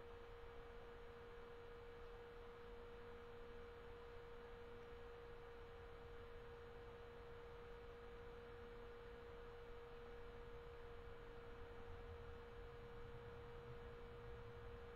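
Near silence: faint room tone with a thin, steady pure tone held at one pitch.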